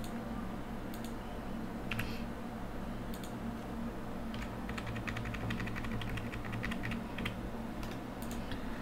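Computer keyboard typing: a few separate key presses, then a quick run of keystrokes lasting about two seconds in the middle and a few more near the end, over a low steady hum.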